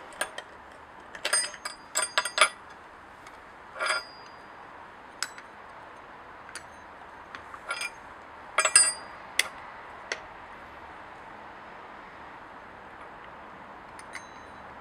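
Metal hand tools clinking and tapping against a Stihl 020 chainsaw's clutch and housing as it is being taken apart: scattered sharp metallic clicks, some with a brief ring, then a quieter stretch over the last few seconds.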